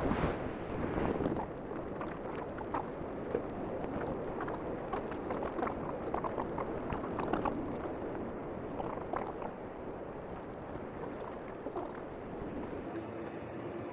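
Street ambience: road traffic and wind on the microphone, a steady rushing noise with scattered small clicks and knocks from the walking camera.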